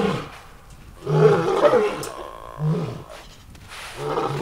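A big cat calling in a series of short, deep roars, about one every second and a half. The loudest comes about a second in.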